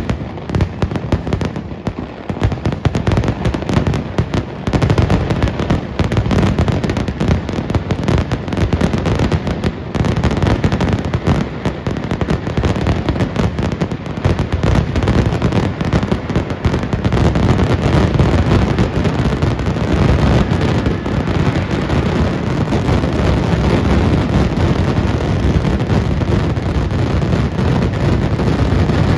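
Kerala temple fireworks (vedikkettu) going off in a rapid, continuous barrage of loud bangs. The explosions come ever thicker until they merge into one continuous rumble near the end.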